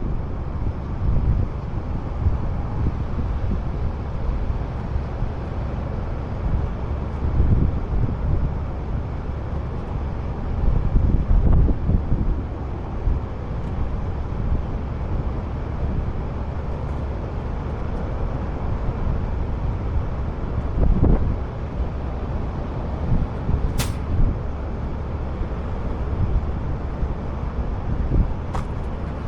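Heavy truck running: a steady, loud low rumble that swells a little now and then, with a single sharp click about three-quarters of the way through.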